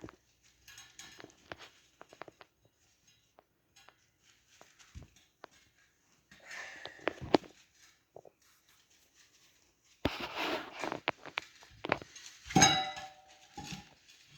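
Metal clinks, knocks and scraping as a dirt bike's rear tire is worked onto its wheel rim by hand and tool. Sparse at first, then busier and louder in the last few seconds, with one sharp ringing clank.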